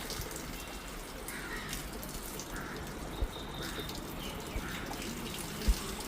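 Water running and splashing during a dog's bath, a steady hiss with a few brief dull thumps, the loudest near the end.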